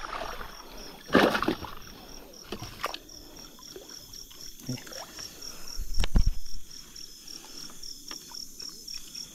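Shallow river water splashing and sloshing in irregular bursts, with a loud low thump about six seconds in.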